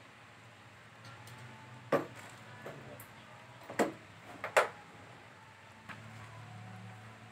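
A few sharp knocks and clacks from handling parts on a treadmill, three louder ones about two, four and four and a half seconds in, over a low steady hum.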